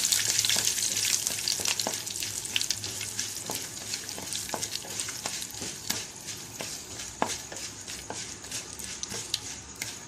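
Tempering sizzling in hot oil in a pan: curry leaves hitting the oil with mustard seeds, urad dal and dried red chillies. The sizzle is loudest at first and slowly dies down, with sharp pops and crackles throughout.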